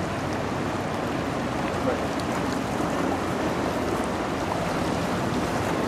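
Steady rushing of water stirred up by a bulk-carrier lake freighter passing close by.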